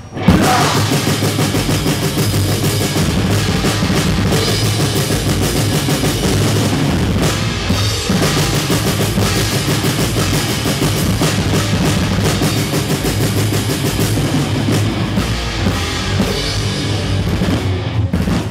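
A rock band playing live and loud, the drum kit to the fore with bass drum and cymbals. It comes in hard right after a short break at the start.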